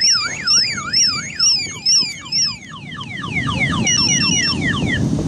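Car alarm sounding its cycle of tones: a sweeping up-and-down wail about twice a second, then switching about halfway through to a fast run of falling chirps. A low rumble of traffic or engine noise builds underneath in the second half.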